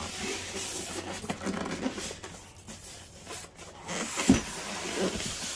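Styrofoam packing insert rubbing, creaking and rustling as it is handled and turned over, with a dull thump a little past four seconds in as it is set down.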